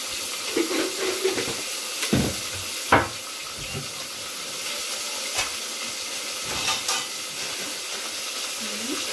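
Mutton and onions sizzling in hot oil in an open aluminium pressure cooker during the bhuna (roasting) stage, with a steady frying hiss. A steel ladle stirs the meat, knocking and scraping against the pot a few times.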